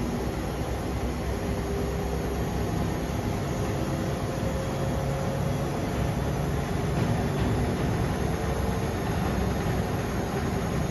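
Front-loading washing machine running on a 40 °C cottons cycle: a steady low hum and rumble from the motor and drum, with faint tones in the hum that drift slightly in pitch.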